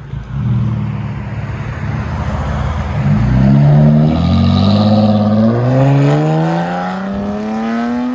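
A 2015 Chrysler 300S's 3.6-litre V6 running through a mid-muffler and resonator delete with J-pipes. It rumbles low at first, then from about three seconds in the car accelerates and the exhaust note rises steadily in pitch.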